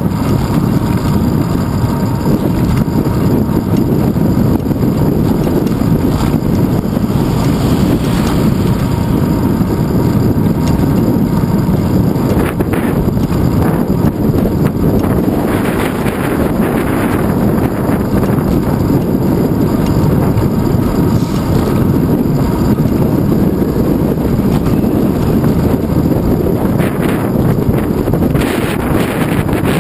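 Wind rushing over the microphone of a handlebar-mounted GoPro Hero 2 on a moving bicycle: a loud, steady rumble of wind noise, with a few brief hissier swells.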